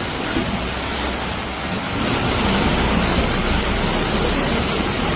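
Heavy rain pouring down in strong wind: a dense, steady hiss with a low rumble underneath, growing louder about two seconds in.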